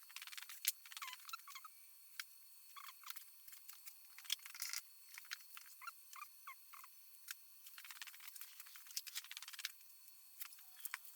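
Faint, scattered light clicks and short scratchy strokes of marking out a wooden board with a pencil and ruler.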